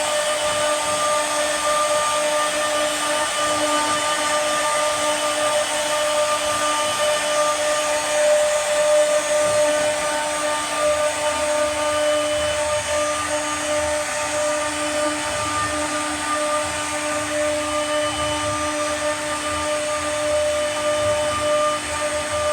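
CNC router spindle running steadily with a constant high whine over a hiss, the sound of the machine at work.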